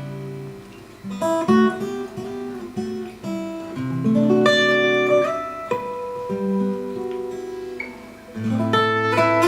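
Acoustic guitar music: picked notes and chords, with some notes sliding in pitch.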